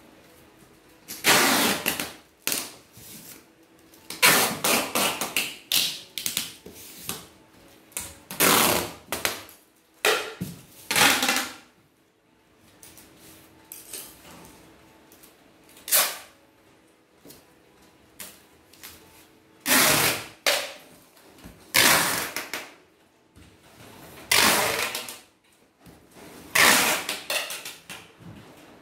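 Clear packing tape pulled off the roll in about ten short, screeching rips with pauses between, as tape is wound around a plastic-wrapped box.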